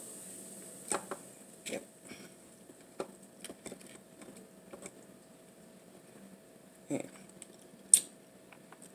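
Handling sounds at a plate of lobster: scattered sharp clicks and taps, about seven of them, the loudest near the end, over a faint steady hum.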